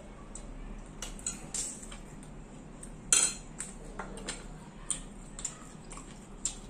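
Forks clinking and scraping against plates during a meal: scattered light clicks, with one louder scrape about three seconds in.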